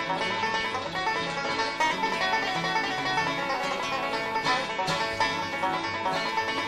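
Background music: a lively plucked-string tune in a bluegrass style.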